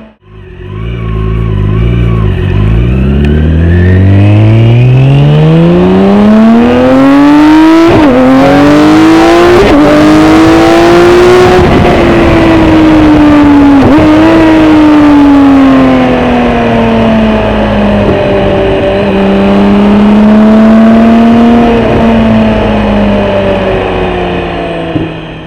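BMW K1600 GTL's inline-six engine through a Dominator aftermarket exhaust, pulling hard from low revs with its pitch climbing for about ten seconds and dipping briefly at three upshifts. It then eases off and runs at a fairly steady cruising pitch with small rises and falls in throttle.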